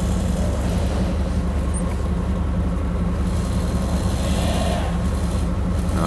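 Vehicle engine running steadily, an even low drone.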